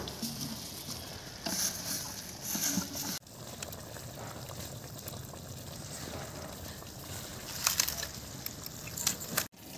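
Spicy duck stew bubbling and sizzling in a wok over a wood fire, with bursts of sharp crackling twice.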